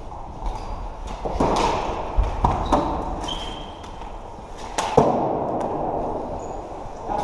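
Floorball play in a sports hall: a few sharp knocks and clacks of sticks and the plastic ball, the loudest about five seconds in, over the shuffle of players on the court, with a short squeak or two.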